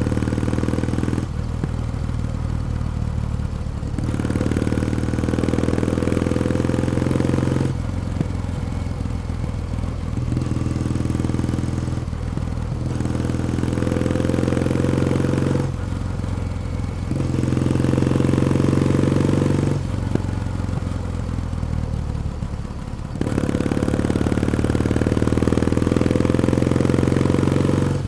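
Kawasaki W1 Special vertical-twin motorcycle engine and exhaust under way. It pulls hard several times with a slowly rising pitch, and between pulls it drops back to a quieter, steadier run on a closed throttle.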